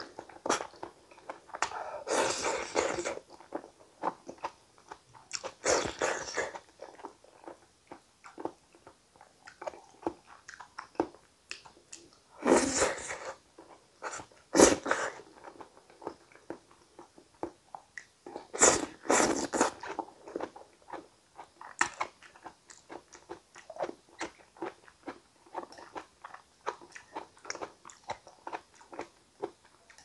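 Close-miked chewing of soft cooked potato and tomato gratin: a run of wet mouth clicks and smacks, with several louder, noisier moments spread through.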